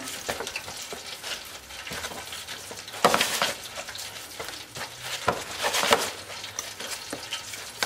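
Hands dusting a whole bream in flour in a plastic tray: soft rubbing and scraping of fish, flour and plastic over a steady hiss. There are two louder swishes, about three seconds in and near six seconds, as the fish is pressed and turned.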